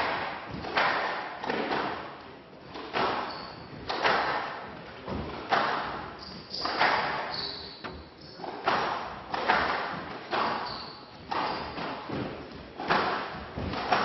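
Squash rally: the ball cracks off the rackets and the walls of a glass court about once a second, each hit echoing in the hall. A few brief shoe squeaks come off the court floor.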